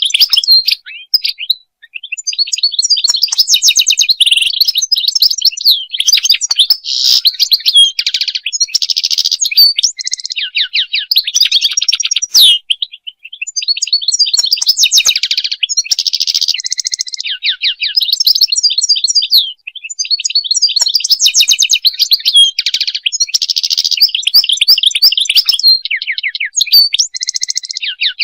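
European goldfinch singing: long runs of rapid, twittering chirps, trills and buzzy notes, broken by brief pauses.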